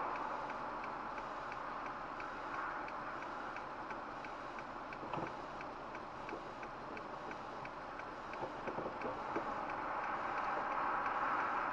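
Steady, even mechanical ticking, about four ticks a second, over a steady hiss, with a few faint knocks around the middle.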